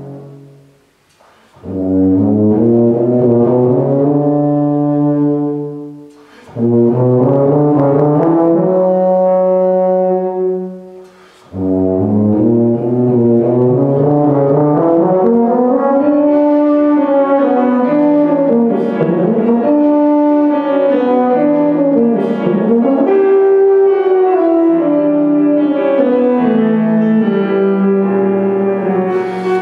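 Tuba playing a classical sonata movement: two phrases of long held notes, each broken by a short pause, then a continuous flowing melodic passage.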